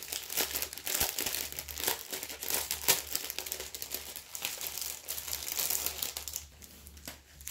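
Clear plastic packaging of a diamond-painting kit crinkling as it is handled, a dense, irregular crackle that thins out near the end.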